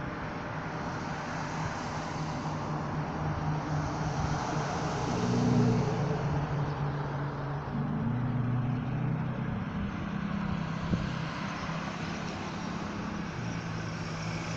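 Road traffic: a steady wash of tyre and engine noise, with the low hum of vehicle engines shifting in pitch as they pass, and one sharp tick about eleven seconds in.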